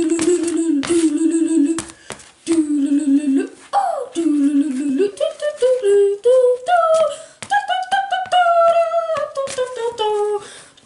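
A child's voice humming and singing a wordless tune: low held notes for the first few seconds, then jumps up in pitch and a long slowly falling note near the end, mixed with quick beatbox-style mouth clicks and pops.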